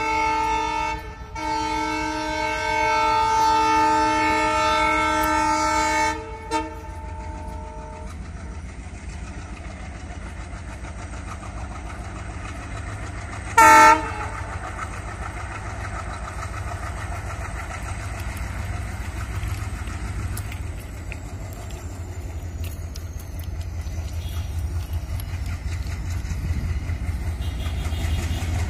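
Horn of an approaching WDM3A diesel locomotive: a long blast of several tones at once, broken briefly about a second in and fading out by about eight seconds, then one short toot about fourteen seconds in. Under it the locomotive's engine rumbles low and grows steadily louder as the train draws near.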